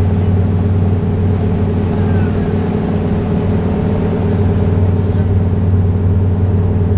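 The John J. Harvey fireboat's diesel engines running steadily under way, a deep, even drone, with the churn of the wake along the hull.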